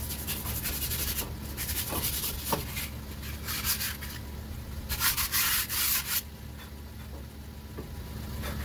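Sandpaper rubbed by hand over a Nissan Tiida's front brake disc in irregular scraping strokes, scuffing off light surface rust before new pads go in. The longest, loudest stroke comes about five seconds in.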